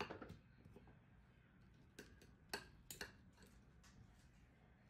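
Near silence, broken by a handful of faint, sharp clicks, most of them about two to three seconds in.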